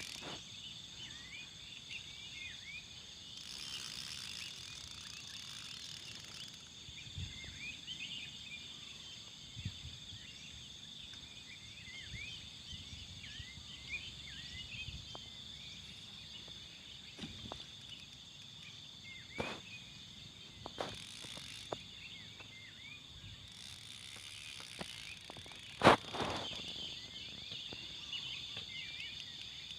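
Outdoor ambience of a steady, high-pitched insect drone with many short chirps over it, broken by a few sharp clicks or knocks, the loudest about 26 seconds in.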